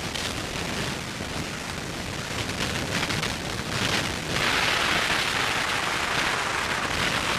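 Steady rushing storm noise of wind and rain against the microphone, growing louder about four seconds in.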